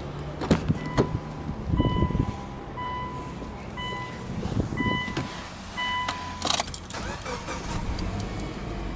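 Dashboard warning chime of a Subaru Legacy beeping about once a second, five times, with clicks and handling knocks around it. About two-thirds through comes a short clatter as the ignition is switched on.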